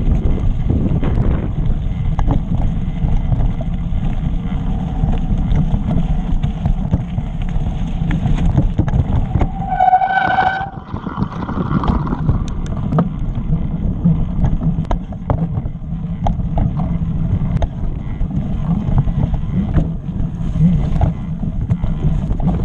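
Mountain bike riding over a rough stony trail: a steady rumble of tyres and wind on the microphone with the bike's frequent rattles and knocks. About ten seconds in, the brakes give a brief high squeal for about a second and the rumble eases as the bike slows.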